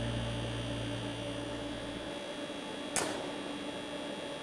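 Steady electrical hum of a Thermal Arc 600 GMS welding power source under a 500-amp load. A deeper low rumble over the first two seconds cuts off abruptly, and a single sharp crack comes about three seconds in.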